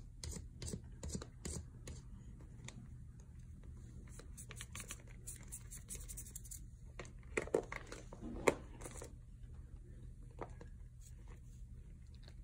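A thin hand tool scratching and scraping at a plaster dig block, chipping it away in short irregular strokes, with the plastic sheeting underneath crinkling. A couple of louder, sharper scrapes come about seven and a half and eight and a half seconds in.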